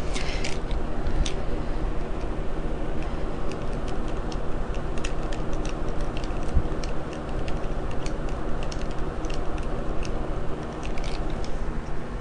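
Small screwdriver turning small screws into a laptop's keyboard frame: irregular light clicks and ticks of the driver tip and screws, several a second, over a steady low hum.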